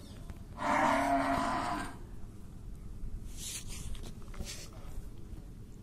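A Murrah buffalo cow gives one loud moo, about a second and a half long, starting about half a second in.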